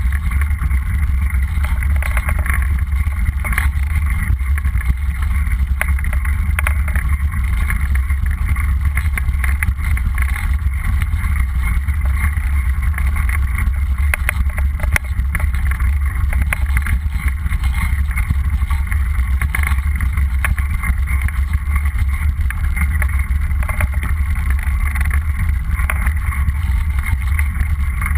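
Wind rumbling loudly on the camera microphone as a mountain bike rolls fast down a dirt and gravel fire road, with scattered small clicks and rattles from the bike over the rough surface.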